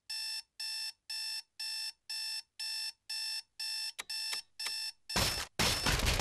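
Digital alarm clock beeping, about two beeps a second. About four seconds in there is a sharp knock as a hand grabs it, then a loud crash as a fist smashes the clock and the beeping stops.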